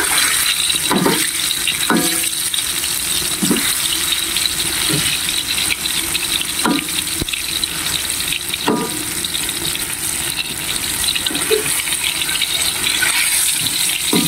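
Battered champadak fritters deep-frying in hot oil in a metal wok: a steady bubbling sizzle and crackle. A few brief clinks, a second or two apart, sound in the first nine seconds or so as a metal ladle stirs and turns the pieces.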